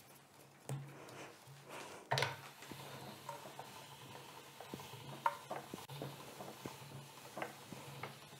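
Hand-cranked pasta machine rolling out a sheet of fettuccine dough: light metal clicks and taps from the crank and rollers and from handling the dough, with a sharper clack about two seconds in.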